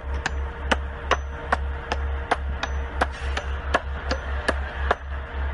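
Steady rhythmic clicking, about two or three sharp clicks a second, over a low pulsing hum and a faint steady tone.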